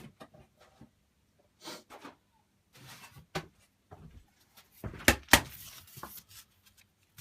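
Scattered handling noises at a workbench: brief scrapes, rustles and clicks, with two loud knocks in quick succession about five seconds in.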